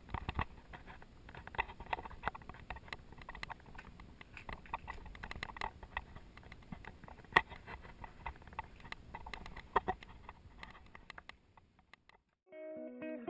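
Faint, irregular clicks and taps, stopping about a second and a half before the end, where a few soft guitar notes begin.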